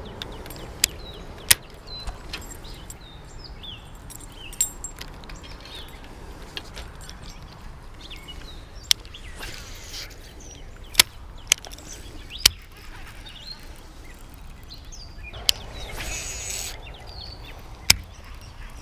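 Baitcasting rod and reel in use: two swishing casts, one about halfway through and one near the end, with sharp clicks from the reel and rod handling scattered through. Songbirds chirp in the first half.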